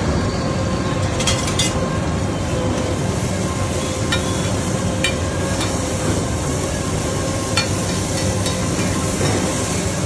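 Eggs and spiced tomato gravy frying on a hot pan, stirred with a metal spatula that gives scattered sharp clicks, over a steady rushing background noise.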